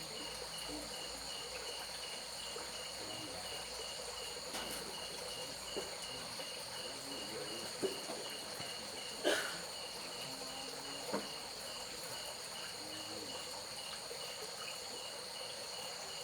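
Crickets and other night insects calling steadily: a constant high-pitched trill with one chirp pulsing about two to three times a second. A few brief faint knocks sound around the middle.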